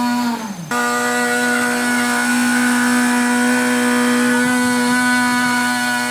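Small gas engine of a vibrating power screed running steadily at high speed, a constant high-pitched drone with many overtones. Its pitch sags and falls for a moment about half a second in, then jumps straight back.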